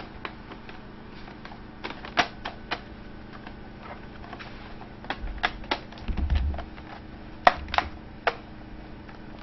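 Irregular clicks and taps of an HP 625 laptop's plastic casing being handled and pressed shut. The loudest clicks come about two seconds in and again near the end, with a few low bumps a little past the middle.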